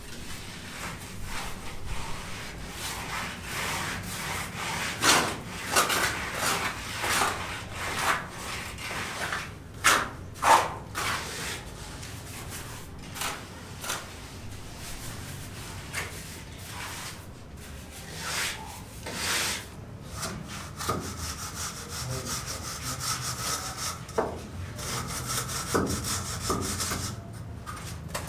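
Hand tools scraping and rubbing in irregular strokes, with a few sharp knocks, the loudest about five and ten seconds in. A steadier run of rasping strokes comes in the second half.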